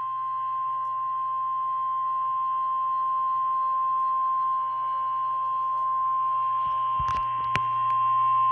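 NOAA Weather Radio 1050 Hz warning alarm tone: one long, steady, high beep, the attention signal that comes before a tornado warning is read out. It is heard from a radio, with two faint clicks near the end.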